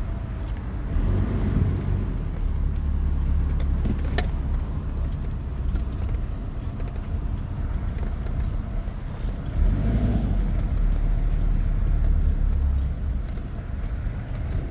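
Car being driven, heard from inside the cabin: a steady low engine and road rumble that swells twice, with a single sharp click about four seconds in.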